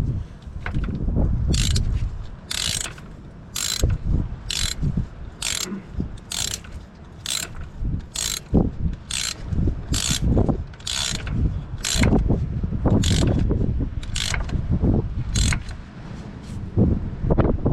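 Ratchet wrench tightening a bolt, worked back and forth with a burst of pawl clicks on each return stroke, about once a second.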